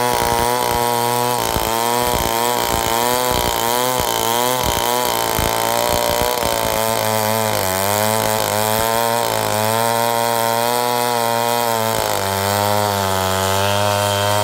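Large chainsaw in a chainsaw mill ripping lengthwise through a big coast fir log, its engine running hard under load. The pitch wavers up and down as the chain bites during the first half, then holds steadier.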